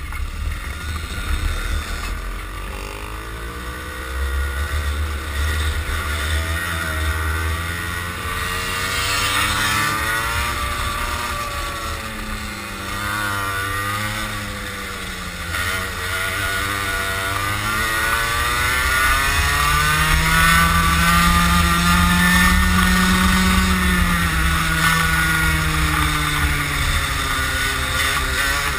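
Racing kart's engine on board at speed, its revs rising and falling again and again, with wind rumbling on the microphone.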